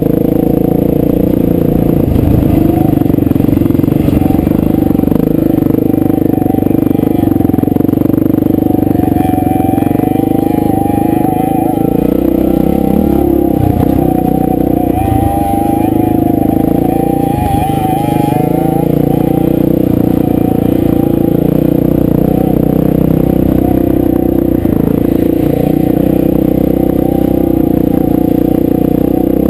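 Dirt bike engine running steadily under way, heard from on board the bike, its pitch wavering up and down for a stretch in the middle.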